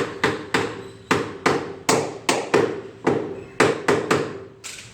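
Hammer blows, about a dozen in irregular quick succession, each with a short ringing after it; they stop near the end. Typical of hammering on a washing machine part during a repair.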